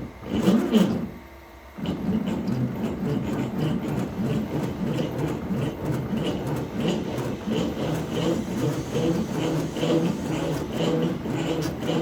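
CNC machine running on a wooden board, a steady mechanical noise with a light pulse repeating a few times a second. It drops out briefly about a second in.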